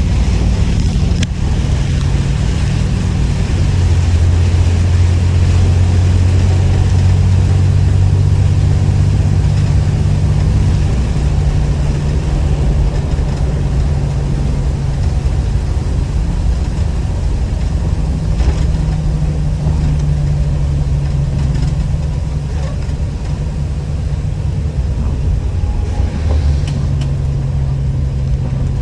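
Blue Bird All American school bus engine running steadily with a low hum, its pitch stepping up and down a few times.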